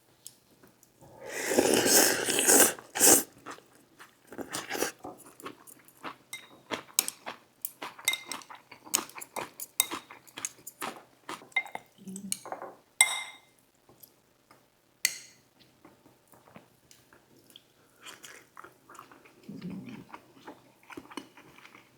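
Close-miked eating of saimin noodle soup: a loud slurp lasting about two seconds near the start, then steady chewing and mouth smacks, with a few short clinks of a utensil against the bowl.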